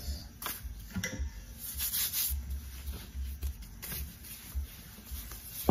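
Wooden rolling pin rolling out yeast doughnut dough on a floured wooden board: soft rubbing with dull bumps against the board, and one sharp knock near the end.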